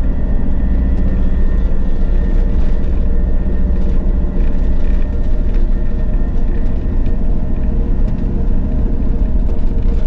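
Camper van driving on a snowy road, heard from a camera on the windscreen: a loud, steady low rumble of engine and road noise with a faint steady engine hum.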